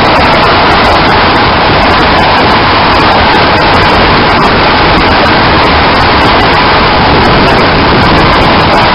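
Loud steady roar of tyre, road and wind noise picked up inside the front wheel well of a moving car, with scattered crackling clicks.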